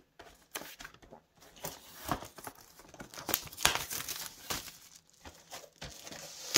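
Crinkling and tearing of the packaging of a Pokémon Silvally collection box as it is pulled open, in irregular rustles, rips and clicks.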